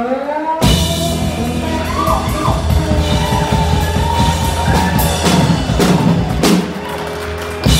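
Live blues band playing the closing bars of a slow blues: drum kit, electric bass, and electric and lap steel guitars, with long gliding held notes over the band. Several hard drum accents land in the second half, the last just before the end.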